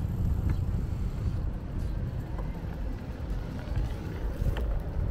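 Low, irregular rumble of wind on the microphone and tyre noise from a bicycle riding along a brick-paver path, with a few faint clicks.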